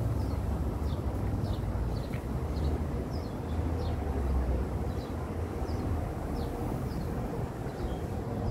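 City street ambience: a steady low rumble of traffic. Over it, short high falling chirps repeat about twice a second.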